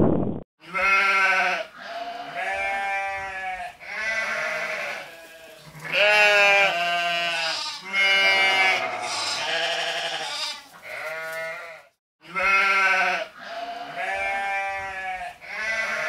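A goat bleating over and over: a long string of wavering calls, each about a second long, with a brief gap about three-quarters of the way through.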